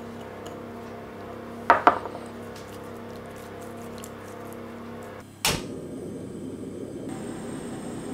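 Two quick knocks of a small ceramic bowl set down on a wooden board. About five and a half seconds in comes a sharp click, then the steady rush of a portable gas stove burner lit under a frying pan.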